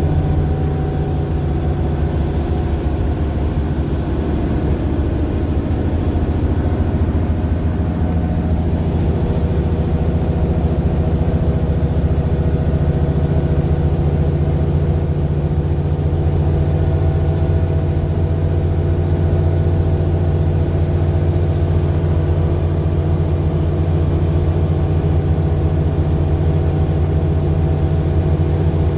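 Mercedes-Benz Citaro LE city bus's Daimler OM 457 hLA inline-six diesel running steadily, a deep even drone, with a faint high whine that comes in about six seconds in.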